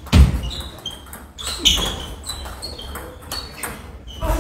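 Table tennis rally: the celluloid ball clicking sharply off the paddles and table in quick succession, with a heavier thump just after the start and short high squeaks from shoes on the wooden floor.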